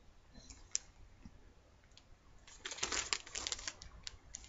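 Plastic bags rustling and crinkling as they are handled. The first half is quiet with a few faint ticks, then a dense run of crackles starts about halfway through.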